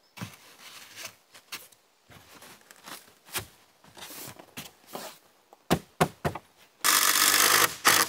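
Rigid foam insulation boards being shifted and pressed into place, with scattered short knocks and scrapes. Near the end a cordless impact driver runs loudly for about a second, driving a screw into the boards.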